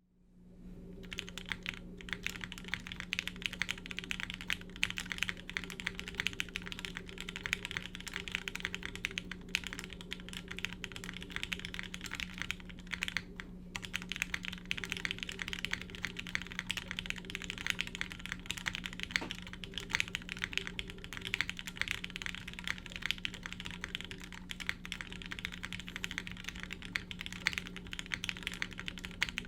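Continuous fast typing on a Kage mechanical keyboard with lubed Gateron Lion linear switches, GMK keycaps and a polycarbonate plate: a dense stream of key clacks with a brief pause a little under halfway through. A steady low hum runs underneath.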